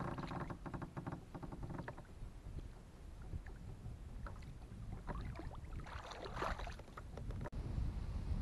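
Wind rumbling on the microphone from a kayak on open water, with a quick run of small clicks in the first couple of seconds. About six seconds in comes a short splashy rush of water as a hand dips into the lake beside the hull.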